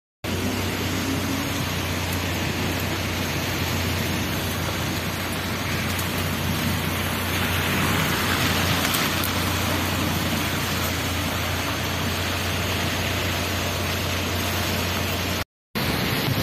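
Steady rain falling, with a low steady hum underneath. The sound cuts out for a moment near the end.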